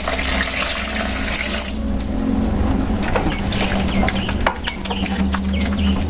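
Rice-washing water pouring from a plastic container into a plastic tub of crushed noni fruit; the stream ends about two seconds in. Then a rubber-gloved hand sloshes and squeezes the fruit pulp in the water, with small splashes.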